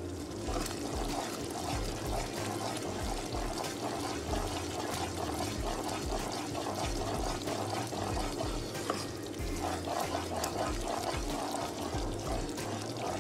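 Runny suji ka halwa mixture of semolina, butter, sugar and water sloshing and simmering in a non-stick pan as it is stirred round with a spoon, with many small pops and clicks.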